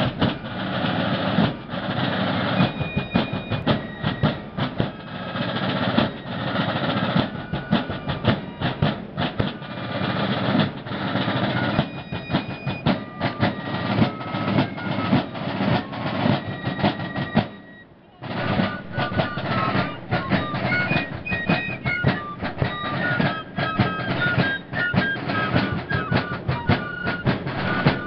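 A Civil War–style fife and drum corps playing: fifes carry the tune over steady rope-tension snare drums and bass drums. The music breaks off briefly about two-thirds of the way through, then starts again with the fife melody standing out more clearly.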